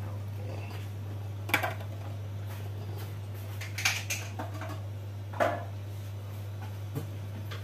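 Three short clatters of kitchen utensils and a container knocking on a counter or bowl, a few seconds apart, with a small tap near the end, over a steady low hum.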